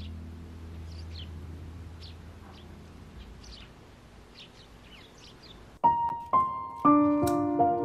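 Eurasian tree sparrows chirping: short, scattered high chirps over the fading last note of earlier music. About six seconds in, soft piano music starts suddenly and takes over.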